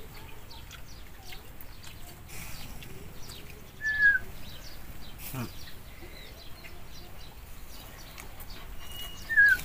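A puppy whining twice, two short high falling whines about four seconds in and near the end, over faint scattered bird chirps.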